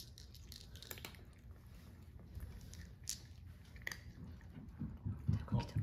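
Cats crunching pieces of dry kibble: a few sharp, scattered crunches with softer chewing between.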